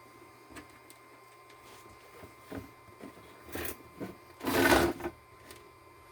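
Handling noises during bench work: a scatter of light clicks and knocks, with a louder noise lasting about half a second about four and a half seconds in.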